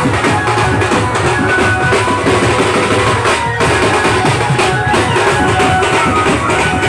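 A marching band's bass drums and snare drums beating a fast, loud, continuous rhythm.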